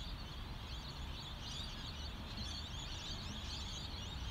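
Many small birds chirping and twittering at once, a steady chorus of short high calls, over a low steady rumble.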